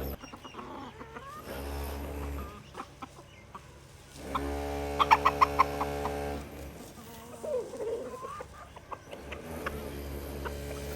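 Chickens clucking and calling, with a longer drawn-out call from about four to six and a half seconds in that has a quick run of sharp clucks in its middle.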